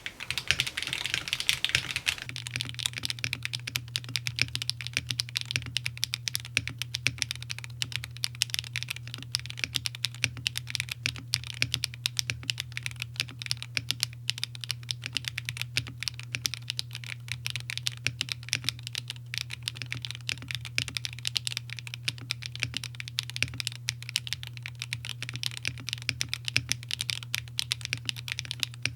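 Bakeneko65 mechanical keyboard with HMX Xinhai switches on an aluminium plate and GMK Tuzi clone keycaps, typed on steadily in a fast, continuous run of keystrokes. A faint low hum sits underneath from about two seconds in.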